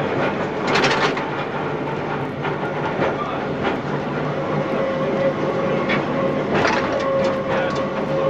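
Electric tram running along street track, heard from on board at the driver's end: a steady rumble with scattered sharp clicks and knocks from the wheels on the rails, and a steady whine that joins about halfway through.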